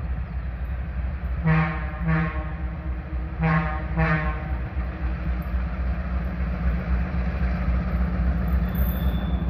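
Locomotive horn sounding four short blasts in two pairs, as the train approaches, over a steady low rumble.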